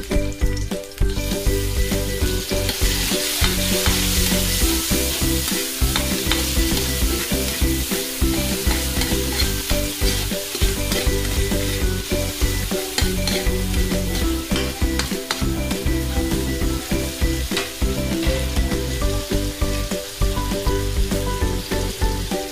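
Garlic, onion and tomato sizzling in hot oil in a metal wok, stirred with a metal spatula that scrapes and clinks against the pan. The sizzle gets louder about a second in.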